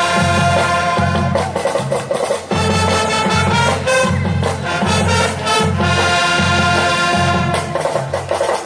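Upbeat brass-heavy music with a steady beat.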